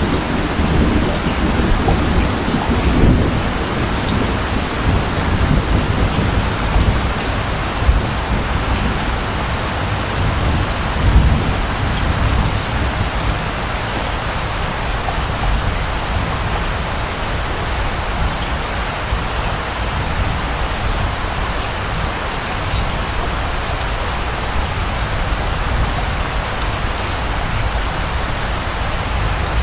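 Steady rain falling, with low rumbles of distant thunder in the first few seconds and again about eleven seconds in, settling into an even patter of rain.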